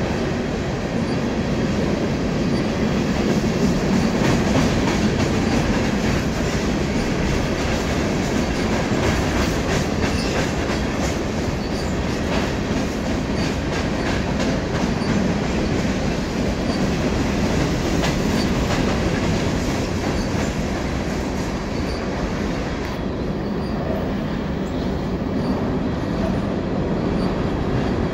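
Freight train cars rolling past in a steady rumble, their wheels clicking over the rail joints.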